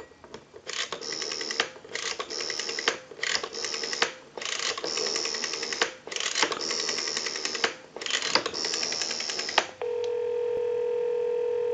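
Stromberg-Carlson 1543 rotary telephone dial wound and let go six times, each return a whirring run of rapid pulse clicks as a number is dialed out on a live line. Near the end a steady tone sounds on the line for about two seconds.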